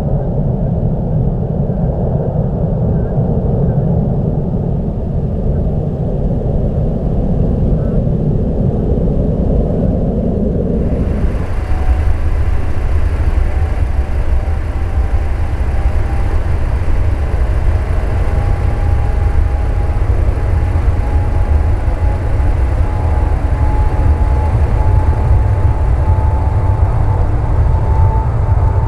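Jet airliner noise. For the first third, the twin CFM56 engines of a departing Airbus A321 give a steady low rumble as it climbs away. Then the sound switches abruptly to an Airbus A320's IAE V2500 turbofans spooling up for the takeoff roll: a broad jet roar with a whine that slowly rises in pitch.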